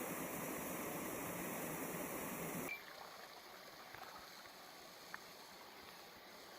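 Steady rush of water from a waterfall and its stream. About two and a half seconds in it cuts abruptly to a much fainter, more distant rush of water.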